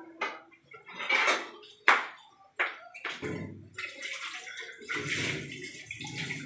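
A few sharp metal clanks of kitchenware being handled, then a tap running and water splashing over a metal pot lid being rinsed in a stainless steel sink, starting about three seconds in.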